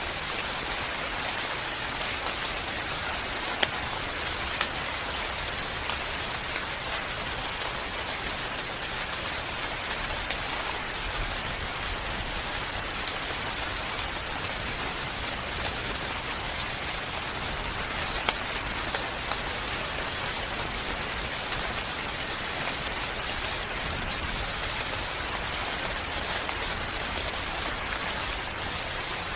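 Steady rain falling on a surface, an even hiss with scattered louder drop ticks.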